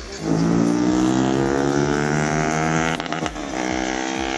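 A motor vehicle's engine running close by, a loud steady hum that sags slightly in pitch. About three seconds in there is a brief clatter of handling noise, and the engine sounds a little quieter afterwards.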